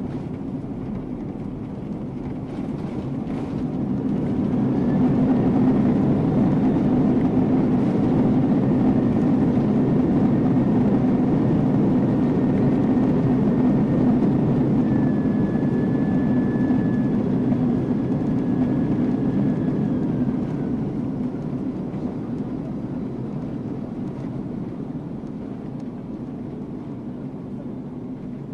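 Boeing 747-400's GE CF6 engines and the runway rumble as heard inside the cabin during the landing rollout. The engine noise swells about four seconds in as reverse thrust builds, holds, and then eases off from about twenty seconds as the jet slows.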